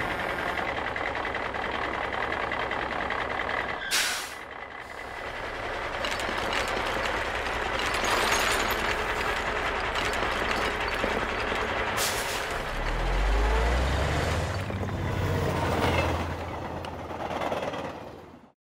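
Sound effects for an animated dump-truck logo sting: a truck engine running, a sharp air-brake hiss about four seconds in and another about twelve seconds in, and a dense rushing noise around the middle as the load is tipped out. A deep low rumble swells up after that and fades away near the end.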